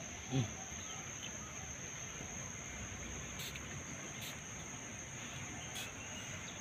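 Insects droning steadily at one high pitch. A short voice-like sound comes about half a second in, and a few faint short ticks come later.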